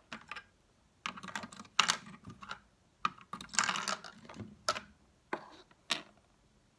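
Plastic LEGO bricks and pieces clicking and clattering as they are handled and pressed on and off a LEGO build: a string of irregular clicks with a few short scrapes.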